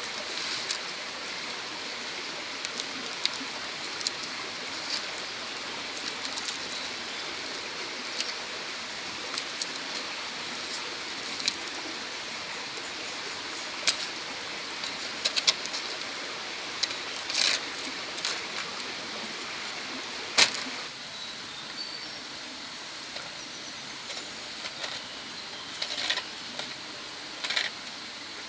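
Knife cutting raw pork on a palm leaf: scattered short sharp clicks and taps of the blade, the loudest about two-thirds of the way in, over a steady rushing background.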